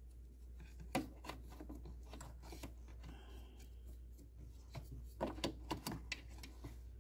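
Faint clicks and rubbing of plastic as an HID headlight bulb in its plastic holder is handled and worked into the headlight housing, with a cluster of sharper clicks near the end. A low steady hum runs underneath.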